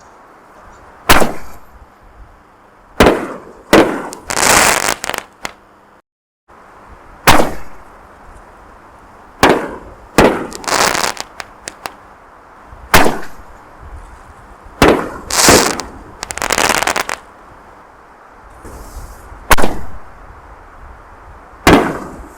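Aerial canister firework shells launching and bursting: a string of sharp booms every one to two seconds, several trailed by about a second of loud hissing crackle from the burst.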